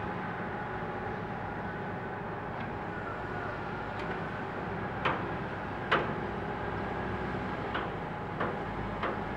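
Steady drone of diesel earthmoving machinery, hydraulic excavators and a wheel loader, running on the site. A handful of short, sharp clacks come from about five seconds in to near the end, the two loudest about a second apart.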